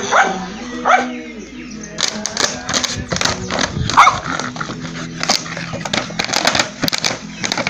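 A dog barks a couple of times, about a second in and again near four seconds. From about two seconds on, a plastic soda bottle rattles and crackles in quick clicks as the dog bites it and knocks it along the dirt.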